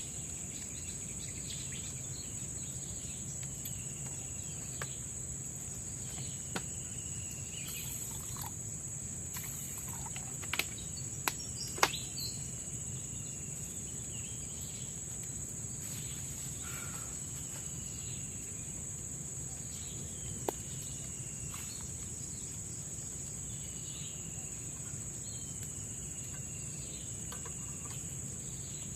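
Tropical forest ambience: insects keep up a steady high-pitched drone, while a short gliding call repeats every couple of seconds. A few sharp clicks or snaps stand out, the loudest about ten to twelve seconds in.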